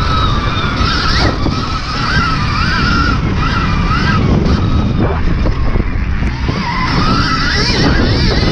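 Stark Varg electric dirt bike's motor whining while ridden, the thin whine rising and falling over and over with the throttle, over heavy wind rumble.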